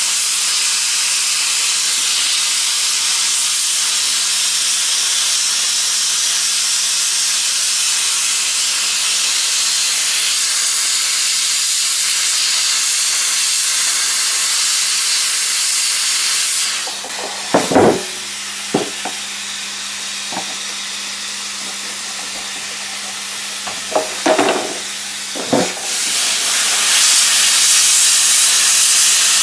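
GEP-2 hot-air plastic welding gun blowing hot air in a steady hiss while a polyethylene filler strip is melted into a seam, over a low steady hum. A little past halfway the hiss drops for several seconds and a few short knocks come through before it returns.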